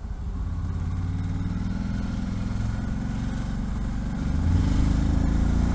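Ducati Multistrada's V-twin engine running under way, heard from the rider's position. The engine runs steadily, then grows louder about four seconds in.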